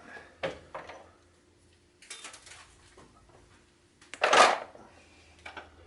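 Short metallic clicks and clatter of tools and parts being handled at a metal lathe, with one louder rasping noise about four seconds in, over a faint steady hum.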